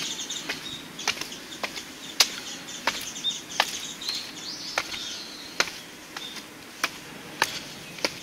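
Footsteps on concrete stairs, one sharp step about every two-thirds of a second as someone walks down.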